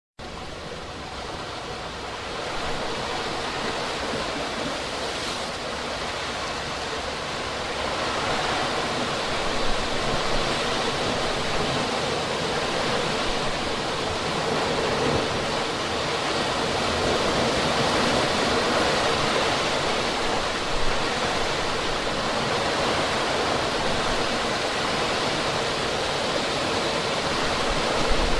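Stream of water flowing steadily, a continuous rushing noise that swells a little over the first few seconds and then holds even.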